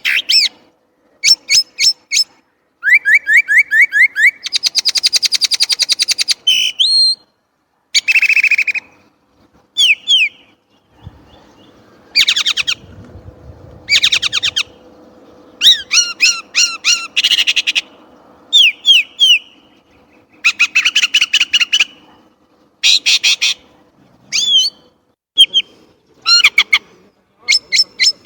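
Chinese blackbird singing loud, varied phrases one after another with short pauses between them: quick runs of repeated notes, fast trills and down-sweeping whistles.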